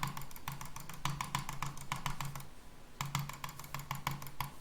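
Computer mouse button clicked rapidly for a click-speed test, about seven even clicks a second, in two runs with a short pause about two and a half seconds in.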